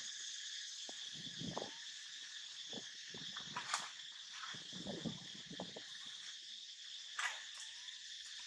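A steady, high-pitched chorus of insects. Scattered soft rustles and a couple of sharp clicks break in, one near the middle and one near the end.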